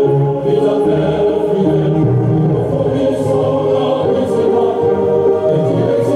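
Music: a choir singing slow, held notes.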